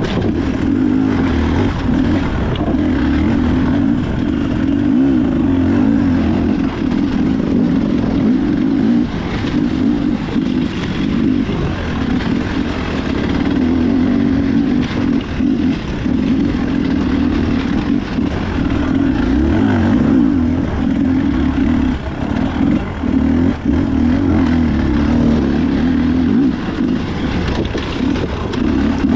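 Beta RR enduro motorcycle engine running hard, its revs rising and falling constantly with frequent brief drops as the throttle is worked.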